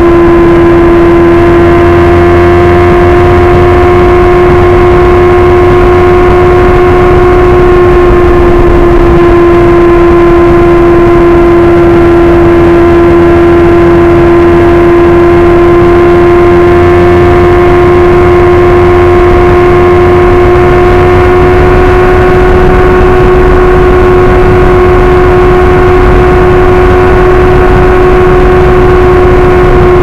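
Suzuki GSX-R1000 inline-four engine running at steady revs while the bike cruises. The engine note holds an almost constant pitch throughout, over a low rumble of wind and road noise.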